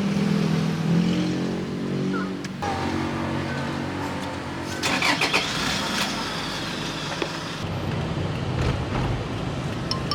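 Car engine running while driving, heard in a few short clips joined by abrupt cuts, with a brief cluster of clicks and knocks about halfway through.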